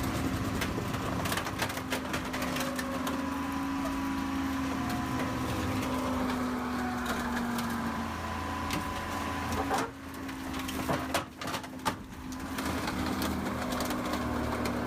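Heavy recycling machinery running with a steady hum while metal cracks and clanks as a car is crushed for scrap; a cluster of louder sharp cracks comes about two-thirds of the way through.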